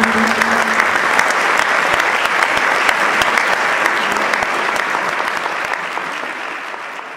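Concert audience applauding, a dense even clatter of many hands that gradually fades toward the end. The last held note of the music dies away in the first second.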